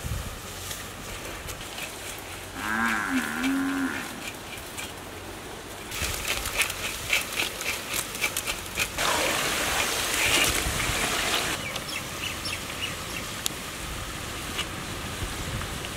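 Potato strips frying in hot oil in a wok: a steady sizzle, rising to loud crackling and hissing from about six seconds in as a fresh batch goes into the oil, easing off after about eleven seconds. About three seconds in, a cow moos once, briefly.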